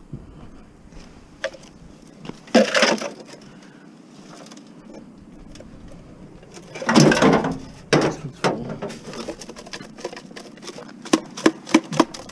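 Aluminium gutter sections and downspout elbows clattering as they are handled and dropped into the back of a car, the loudest clatter about seven seconds in. A quick run of sharp knocks comes near the end.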